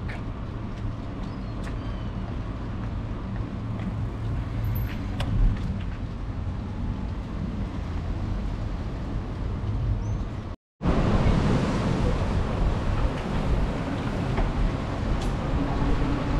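Wind rumble and rolling road noise from riding a bicycle, picked up by the camera's microphone. The sound drops out for a moment about two-thirds through and comes back louder.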